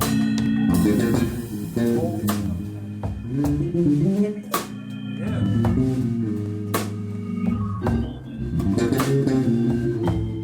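Live band playing an instrumental passage: a melodic line in the low-middle register over a bass guitar and drum kit, with sharp drum accents about every two seconds.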